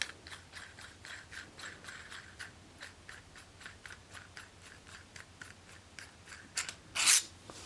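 Small metal camera-rig parts being handled, giving a run of light, quick clicks at about four a second, then a louder scrape near the end.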